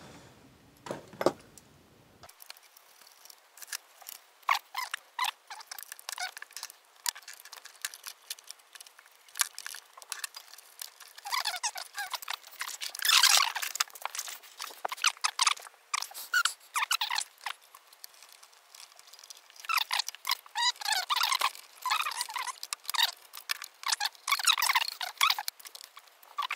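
Small screwdrivers clicking, scraping and squeaking against screws and the metal side panel of a Sony DSR-370 DVCAM camcorder as the panel is unscrewed. It is a rapid, uneven patter of short clicks and scratches, thin with no low end, busiest around the middle and again near the end.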